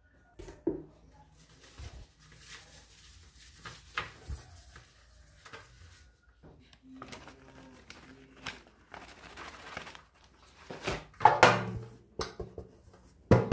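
A hand rubbing oil over a stainless steel baking tray, with faint rubbing and scattered light clicks against the metal. About eleven seconds in, the tray gives a louder clatter as flour is dusted into it.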